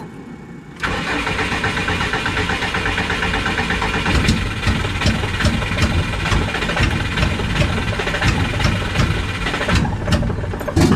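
Subaru flat-four engine cranked over on the starter for about nine seconds, trying to catch but not starting, with a backfire; the owner thinks it may be down to ignition timing.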